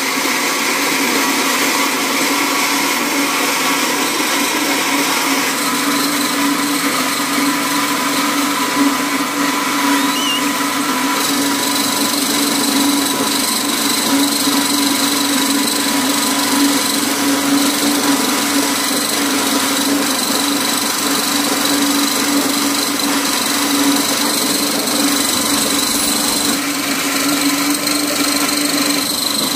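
Small electric grinding mill with a white funnel hopper running steadily under load as it is fed, a continuous motor whine with a higher note joining about a third of the way in.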